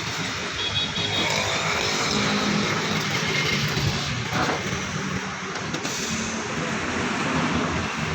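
A motor vehicle engine running steadily amid a continuous noisy background.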